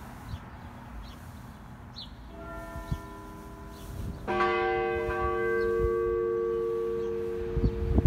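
A rope-pulled church bell tolling: a fainter stroke about two seconds in, then a loud stroke about four seconds in that hums on and slowly fades.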